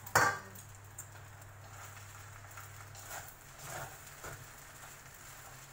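Chopsticks and fingers working a mound of dry rice noodles in a wok: one sharp knock just after the start, then a few soft taps and rustles. A low hum underneath stops about halfway.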